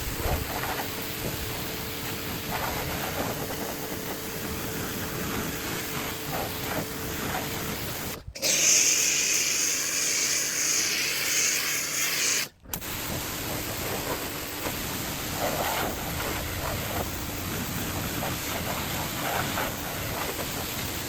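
Water spraying onto a dirt bike as it is washed, in a few edited clips. A louder, harsher hiss of close spray runs for about four seconds in the middle.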